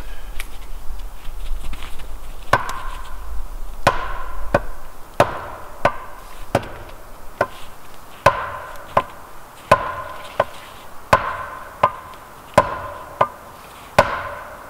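Axe chopping into a solid log to split it: a steady run of quick, sharp strikes, about three every two seconds, each with a short woody ring. The strikes start a couple of seconds in.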